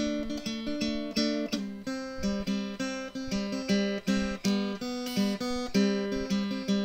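Background music: an acoustic guitar playing a steady run of plucked notes, a few a second.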